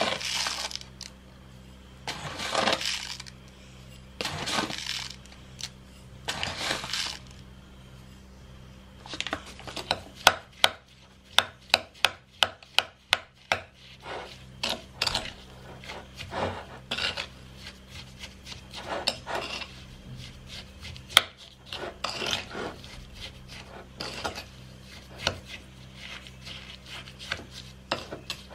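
A few short swishes of sugar poured from a paper bag onto diced kiwi in a bowl, then a metal fork clicking and scraping against the bowl as the kiwi and sugar are stirred together, over a faint steady low hum.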